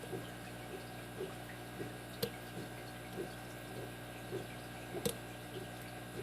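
Small clicks and ticks of a lock pick working the pin stack of a Kasp 5-pin brass padlock cylinder, with two sharper clicks about two and five seconds in, over a steady background hum.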